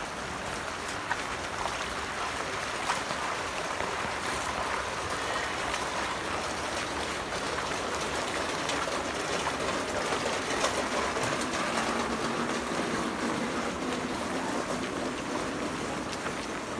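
Floodwater rushing in a steady, noisy flow, with a few faint clicks.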